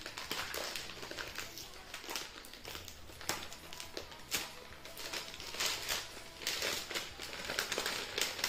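Brown kraft paper wrapping being handled and torn open from around a book, crinkling and rustling in irregular crackles.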